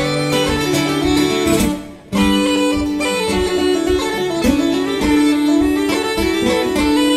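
Uilleann pipes playing an Irish tune over their steady drones, with acoustic guitar accompaniment. The music drops out for an instant about two seconds in, then carries on.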